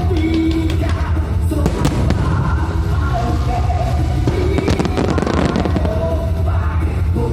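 Aerial fireworks bursting and crackling in several volleys over loud music with held notes and heavy bass.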